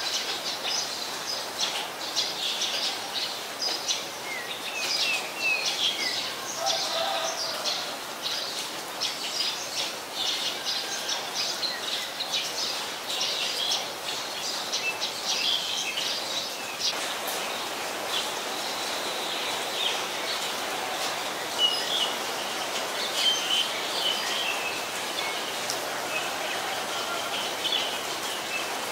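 Black-collared starlings calling: many short, high chirps and whistled notes, thickest in the first half and sparser later, over a steady background hiss.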